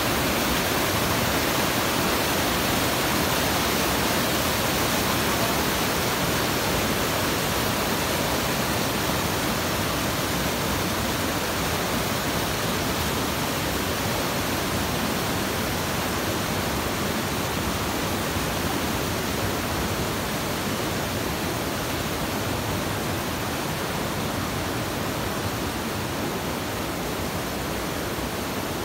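Rushing mountain stream: white water tumbling over boulders and churning into a rock pool, a steady, even rush.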